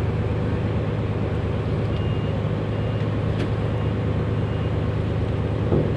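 Large marine diesel engine running steadily, a deep continuous drone.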